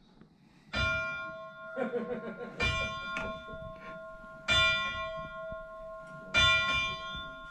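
Locomotive bell on electric locomotive 652 rung by hand four times, about two seconds apart, each strike ringing on in a long steady tone that carries into the next.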